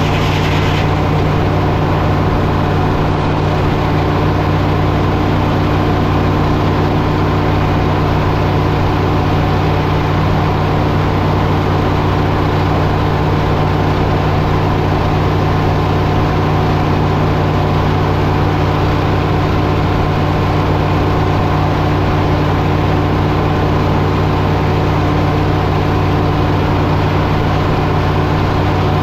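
Engine powering a sawmill, running steadily at constant speed, its note and loudness unchanged throughout.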